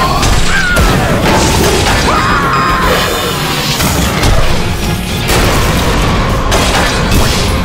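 Cartoon action soundtrack: music with crashing and booming impact effects.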